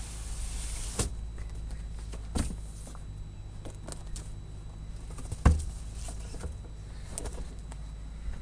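Cardboard shipping box being opened and handled: a scraping hiss for about the first second that ends in a sharp knock, then scattered rustles and knocks of cardboard, the loudest a dull thump about five and a half seconds in.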